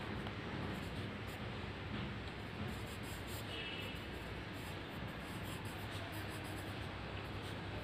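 Faint scratching of handwriting on notebook paper: the writing tip dragging across the page in short, irregular strokes.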